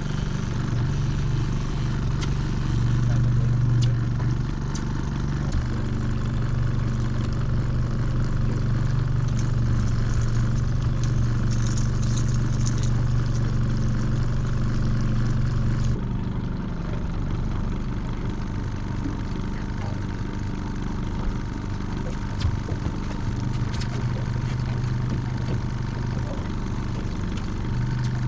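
Outboard motor running steadily at trolling speed, a low drone whose pitch and level shift a few times.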